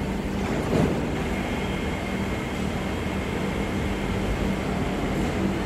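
Steady hum and rumble of an SMRT MRT train standing at the station platform, with a constant low drone. A short knock about a second in.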